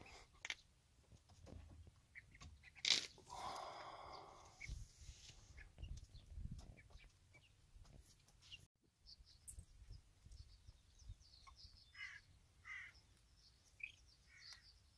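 Faint, scattered calls of young chickens in a coop: one harsh call about four seconds in and a few short, high calls in the second half, with scattered knocks and rustling.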